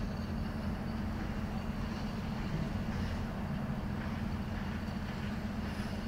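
Steady low rumble of distant traffic.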